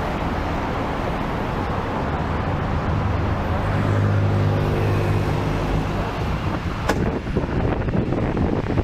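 Road and traffic noise heard from a moving sightseeing bus in city streets, with an engine's low hum swelling in the middle. A sharp click comes about seven seconds in, and then wind starts buffeting the microphone.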